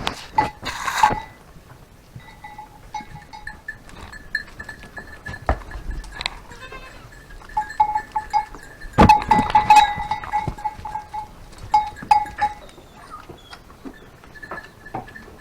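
Goats bleating on and off in a tremulous, pulsing call that is loudest about two-thirds of the way through, with scattered clicks and knocks.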